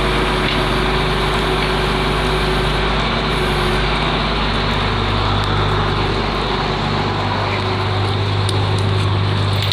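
Flatbed tow truck's engine running steadily, a low hum with a constant pitch that grows stronger about halfway through.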